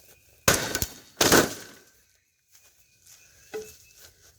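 Two sledgehammer blows on a plasma TV, about a second apart, each a loud smash with a short rattle of glass and panel after it, then a lighter knock near the end. The tough set holds up under the blows.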